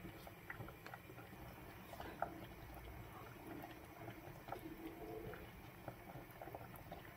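Tomato sauce simmering faintly in a pan, with small pops and clicks as a wooden spoon stirs it.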